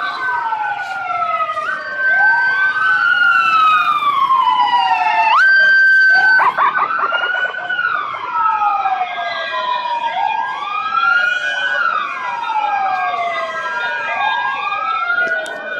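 Several emergency vehicle sirens wailing at once, each rising and falling slowly over two to three seconds and overlapping out of step; now and then one holds a steady high note for about a second before sliding down again.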